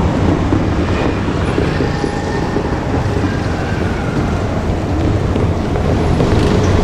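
JR Kyushu KiHa 200 diesel railcar running by, a steady low rumble with faint higher tones sliding in pitch.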